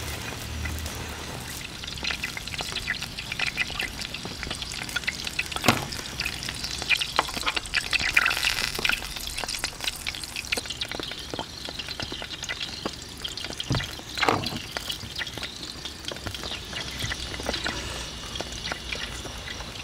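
Steady crackling, sizzle-like hiss with small clicks and taps of tongs and a basting brush on a wooden cutting board, and a couple of louder knocks, about six and fourteen seconds in.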